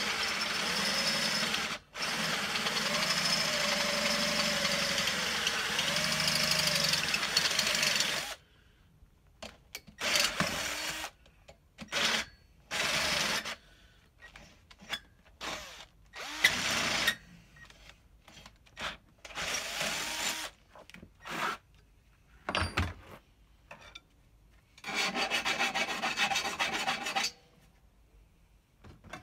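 Cordless drill boring holes into the bottom of a bicycle's bottom bracket shell. It runs continuously for about eight seconds with the motor's pitch wavering under load, then in a series of short bursts of a second or two.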